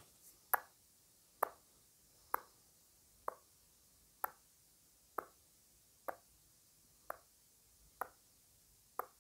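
A clock ticking about once a second: ten short, sharp ticks counting off a ten-second time limit.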